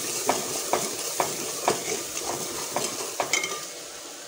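An onion-and-spice masala frying in oil in a degchi, sizzling steadily, while a metal ladle scrapes and knocks against the pot about twice a second as it is stirred. This is the bhuna stage, the masala being fried through before water goes in. The stirring stops about three and a half seconds in, and the frying goes on more quietly.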